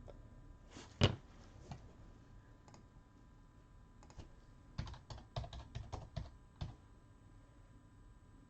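Typing on a computer keyboard: one louder keystroke about a second in, then a quick run of keystrokes from about five to seven seconds in.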